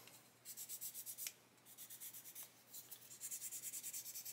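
Small sanding stick rubbed in quick back-and-forth strokes over a plastic model part, a fast run of light rasping strokes with a short pause about a second and a half in. The part is being sanded flat where a moulded ridge was just shaved off.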